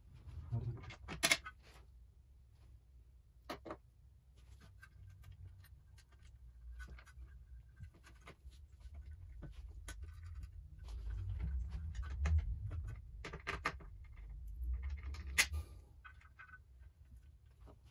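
Hands working bolts and fittings on an outboard motor's lower unit and midsection housing: scattered light metal clicks and clinks, with a few sharper knocks about a second in, near four seconds and near fifteen seconds, over low rumbling handling noise.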